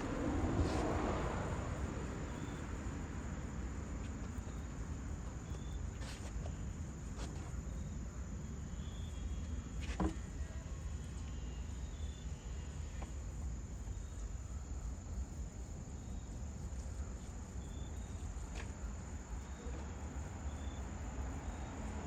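Steady low outdoor rumble with faint, scattered short high chirps of insects and a few light clicks, the sharpest about ten seconds in.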